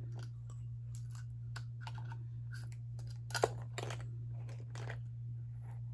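Scissors and small items being handled and fitted into a holder by hand: irregular light clicks and taps, with one sharper click a little past halfway. A steady low hum runs underneath.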